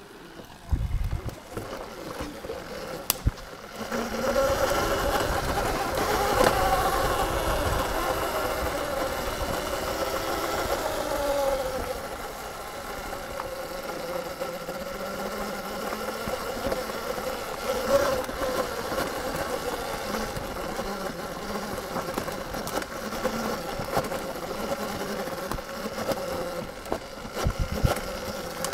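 Electric dirt bike's motor and drivetrain whining, the pitch rising and falling with the throttle for several seconds and then holding steadier. Low knocks and rumble from bumps and wind come in the first few seconds.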